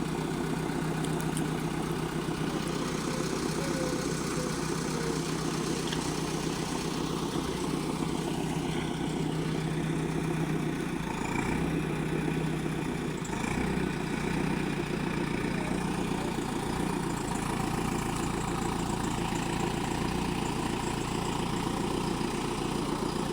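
Backhoe loader's diesel engine running steadily at a low idle, with a brief dip and change in tone about halfway through.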